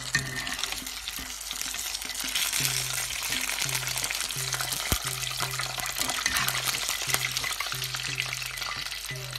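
Wontons deep-frying in hot oil, a steady sizzle, as they are stirred and lifted with a metal spoon and tongs.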